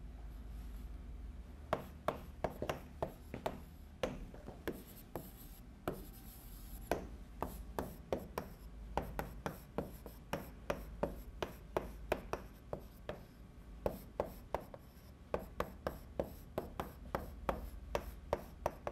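Chalk writing on a chalkboard: a fast, irregular run of sharp taps and short scrapes as the chalk strikes and drags across the board, over a steady low hum.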